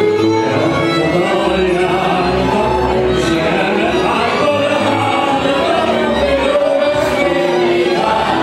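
A man singing through a microphone with live violin and band accompaniment: long held sung notes over low bass notes.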